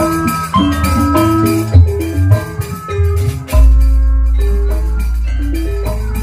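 Sundanese jaipongan music in bajidoran style from a gamelan ensemble: mallet-struck metallophone notes over kendang drum strokes. About halfway in, a deep low stroke, likely the large gong closing a phrase, rings on and slowly fades.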